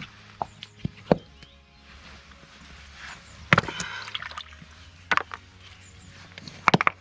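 Splashing and sloshing in a shallow creek pool as someone wades and handles stones and water, with scattered sharp knocks and a short, louder splash about three and a half seconds in.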